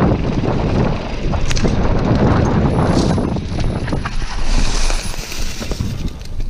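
Mountain bike running fast down a dirt singletrack: wind buffeting the bike-mounted camera's microphone over tyre rumble, with frequent clicks and rattles from the bike over bumps. It eases a little about five seconds in.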